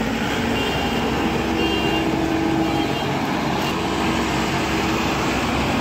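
Tracked paddy combine harvester running steadily as it crawls through deep mud.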